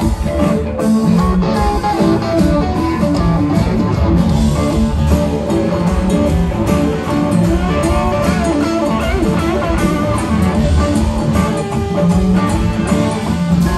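Live rock band playing an instrumental passage: electric guitars over drums, bass and keyboards, loud and continuous, heard from the audience.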